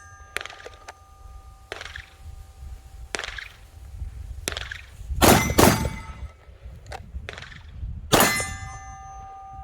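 Steel targets struck by pistol rounds, ringing after each hit: fainter knocks in the first few seconds, then three loud hits, two about five seconds in half a second apart and one near eight seconds, each leaving a clear ringing tone.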